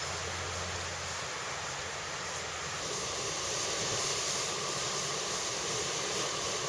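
Steady rushing outdoor background noise, swelling slightly a few seconds in.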